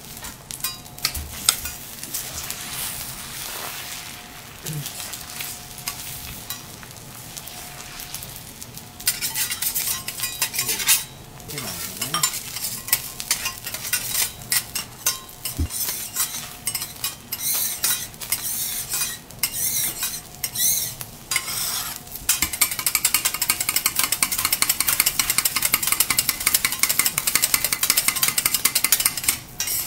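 Egg sizzling on a hot steel teppanyaki griddle, with a metal spatula scraping and tapping on the steel. For the last several seconds the spatula edge chops the egg against the griddle in rapid, even clicks.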